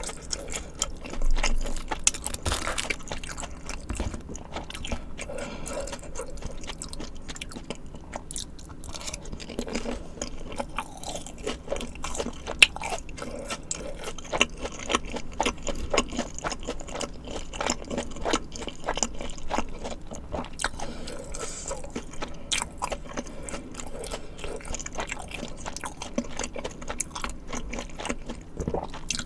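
Close-miked eating: chewing and crunching mouthfuls of spicy tteokbokki and fried snacks, a dense run of small, irregular wet clicks, with a louder crunch a little over a second in.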